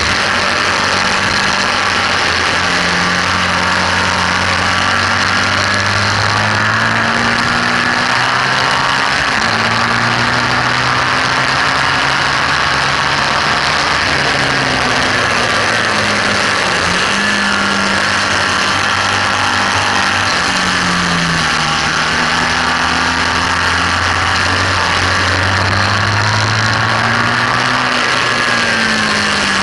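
BMW R1200S air/oil-cooled flat-twin boxer engine pulling hard on track. Its pitch climbs through the revs and drops sharply several times at gear changes and braking, under a steady rush of wind noise on the bike-mounted camera's microphone.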